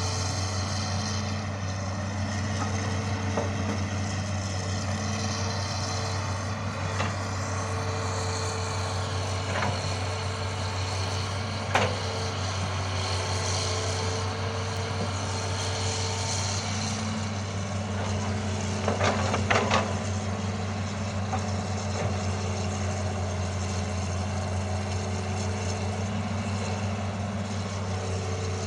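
Hitachi Zaxis 210 excavator's diesel engine running steadily as the machine works, with a sharp knock about twelve seconds in and a short burst of cracks and knocks around nineteen seconds.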